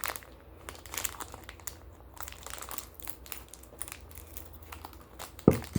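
Plastic blind bag crinkling and crackling in the hands as it is opened, with irregular small crackles and a single sharp snap near the end.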